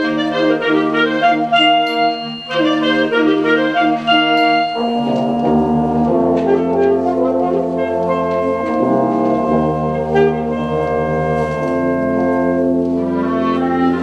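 Concert wind band playing: quick, short-note passages for the first five seconds or so, then the full band holds long sustained chords over a low bass line.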